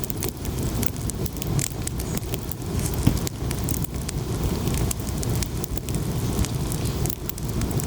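Wood campfire burning, with many small crackles and pops over a steady low rumble.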